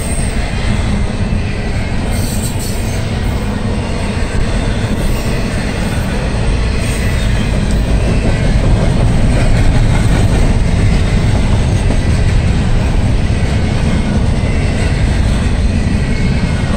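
Norfolk Southern double-stack intermodal train's container well cars rolling past close by: a loud, steady rumble and rattle of steel wheels on the rails, swelling a little in the middle.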